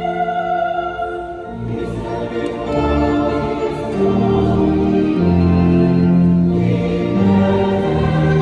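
Mixed choir singing sustained chords with electronic organ accompaniment; deep bass notes come in about two seconds in and hold under the chords.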